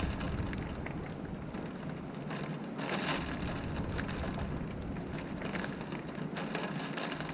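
Wind-driven rain beating against a window pane: a steady dense patter, swelling louder as gusts throw the rain against the glass about three seconds in and again near the end.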